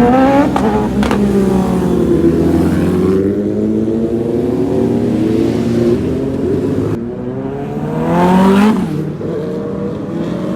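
Sport motorcycle engine revving: the pitch falls away over the first few seconds, then climbs sharply about eight seconds in and drops back.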